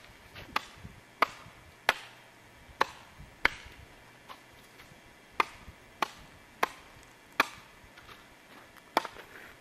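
A series of sharp, short taps or knocks, about a dozen, coming at irregular intervals of roughly half a second to a second and a half.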